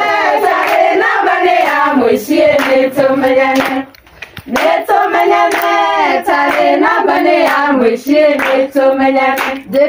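A group of women singing together, with hand claps keeping the beat. The singing breaks off briefly about four seconds in, then resumes.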